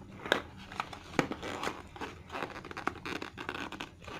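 Packaging being handled and crinkled by hand, with several sharp clicks and taps among the rustling.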